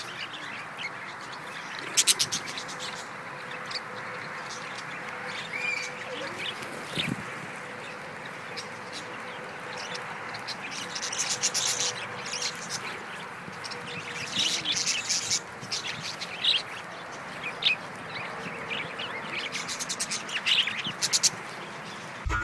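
A flock of budgerigars chirping and chattering, with bursts of sharp, high calls every second or two over a steady hiss.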